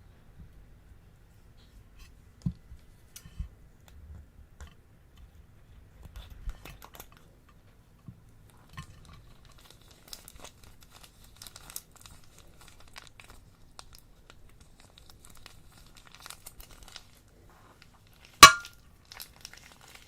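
Plastic piping bags crinkling and rustling as slime is handled, in scattered soft crackles and clicks, with one sharp loud click near the end.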